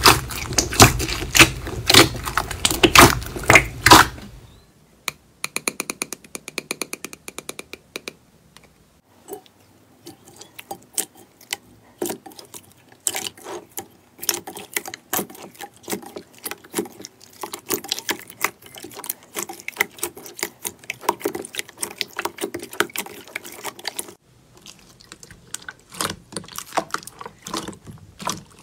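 Slime being squeezed by hand: for the first four seconds or so, dense crunchy crackling from foam beads pressed in a thick slime, then a clear jelly slime stretched and poked, giving sticky pops and small clicks of trapped air.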